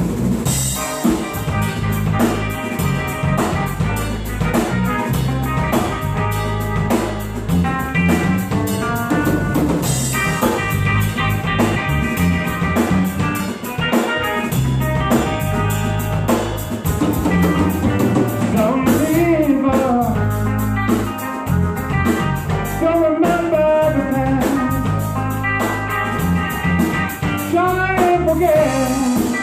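Live rock band playing with electric guitar, bass and drum kit, a steady beat; a melodic lead line comes in about two thirds of the way through.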